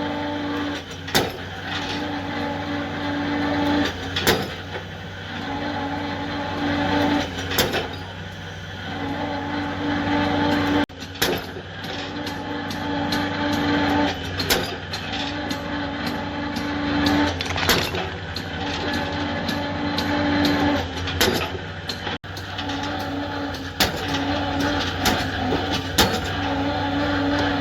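Excavator's diesel engine running under load. A strained tone comes in for about two seconds at a time, every few seconds, as the hydraulics work. Sharp knocks are scattered throughout.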